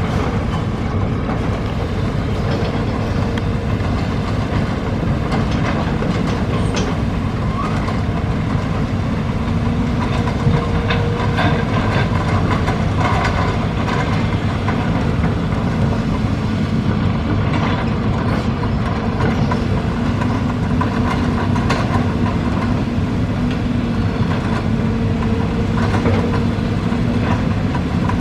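Excavator working: steady heavy diesel engine noise, with occasional metallic clanks.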